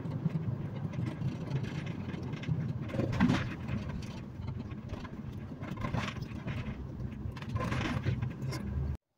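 Car cabin noise while driving: a steady low road and engine rumble with a few brief knocks and rattles. It cuts off abruptly about nine seconds in.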